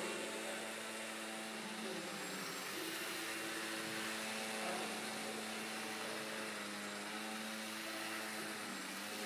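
Electric motor and propeller of a scratch-built depron VFO tailsitter model hovering, a steady buzzing whir whose pitch dips and rises a few times.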